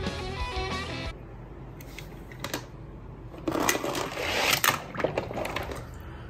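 Music fades out about a second in. Then come scattered clicks and a clattering rattle of small toy cars being handled, loudest in the middle.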